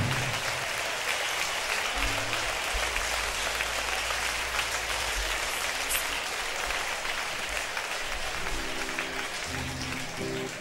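A large concert audience applauding. Low held instrument notes sound underneath, and near the end plucked acoustic guitar notes start under the applause.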